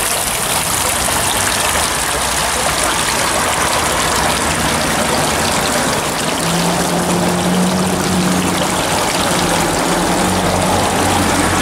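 Fountain water splashing steadily as it pours off a granite rim and down a pebble-stone column into its pool. From about halfway, a low engine hum runs underneath.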